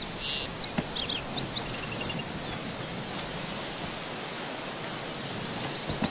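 Open-country ambience: a steady hiss like wind over a field, with birds chirping, a few high calls and a quick trill in the first two seconds and a run of rapid small chirps about five seconds in. A soft thump near the end.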